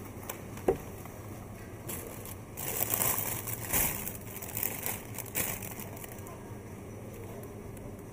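Crackling, rustling noise in several bursts over a steady low hum, after a single sharp click.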